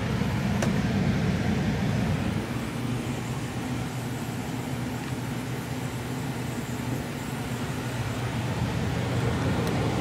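2003 Bryant 80% gas furnace's blower running in cooling mode: a steady low hum with a rush of air through the return grille.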